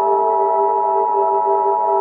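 Emergency Alert System attention signal: a steady, unbroken chord of electronic tones, strongest near 850 and 960 Hz, with lower tones wavering slightly beneath. It marks the start of an urgent alert.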